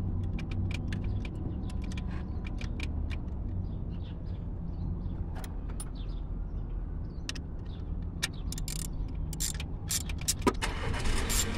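Scattered light clicks and ticks of a small screwdriver and fingers working the plastic distributor cap's screws, more frequent near the end, over a steady low hum.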